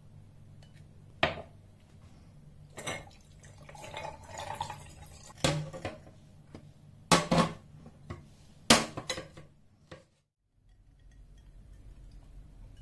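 Chopsticks clinking against a glass pickle jar, then a drinking glass set down on a tray: about six sharp clinks and knocks, the loudest around seven and nine seconds in.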